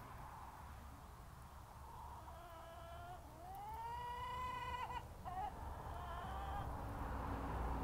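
Flock of birds flying overhead, calling: a short call about two seconds in, then a drawn-out call that rises and holds for about a second and a half, and a fainter call after it, over a low rumble.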